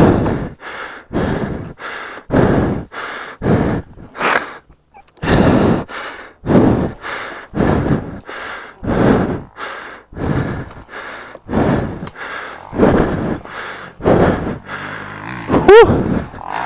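A worn-out motocross rider breathing hard and fast close to the microphone, about one and a half heavy breaths a second, exhausted after a crash. Near the end comes a short pitched sound that rises and falls.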